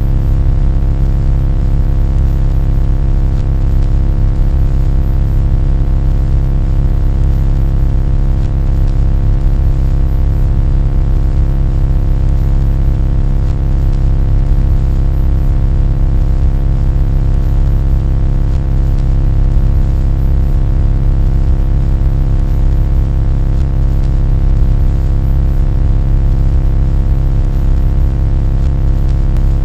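Loud, steady low-pitched droning hum with a stack of evenly spaced overtones, unchanging throughout.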